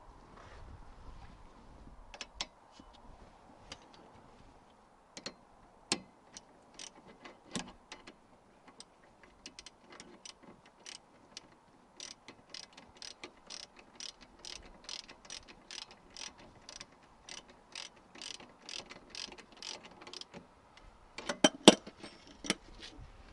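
Hand socket ratchet clicking at about three clicks a second while new rear brake caliper bolts are run in, with a few louder metallic knocks near the end.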